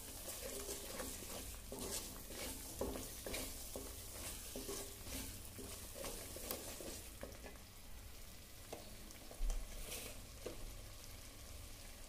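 Thick spice masala paste frying in oil in a clay pot, sizzling softly while a wooden spatula stirs and scrapes through it in regular strokes, about two a second. A single dull thump about nine and a half seconds in.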